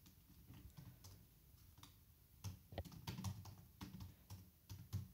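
Faint typing on a computer keyboard: an irregular run of soft key clicks, thickest in the second half.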